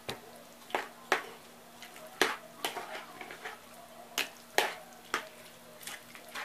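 Metal spoon knocking and scraping against a plastic bowl while stirring a wet mix of chopped beef foot and onion, in irregular sharp clicks about twice a second.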